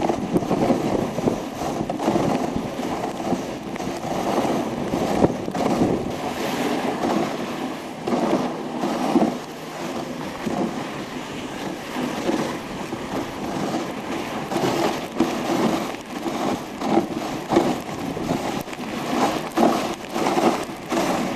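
Dog sled running over packed snow behind a husky team: a continuous scraping of the runners with uneven knocks and jolts.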